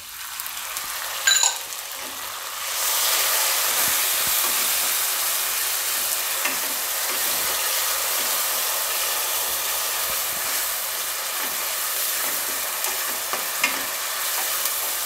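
Onion frying in hot spiced oil in a kadai, a steady sizzle that swells louder about three seconds in, while a wooden spatula stirs it. There is a sharp clink about a second in and a few lighter knocks of the spatula against the pan.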